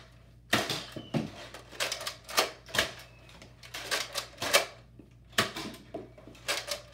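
Nerf foam-dart blasters firing: a dozen or so sharp clacks at irregular intervals.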